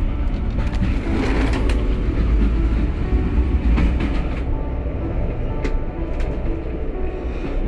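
Coaches of the Jacobite steam train running along the track: a steady low rumble and rattle, with a few sharp clacks.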